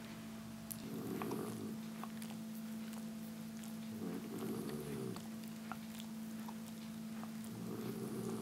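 A rough collie lying on a carpet makes a low sound three times, each lasting about a second and a few seconds apart. A steady low hum runs underneath.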